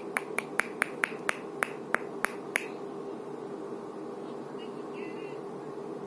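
A quick run of about ten sharp clicks, roughly four a second, stopping about two and a half seconds in, over a faint steady hum.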